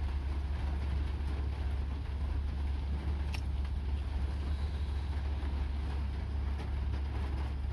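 Steady low rumble inside a car cabin, from the car's engine running.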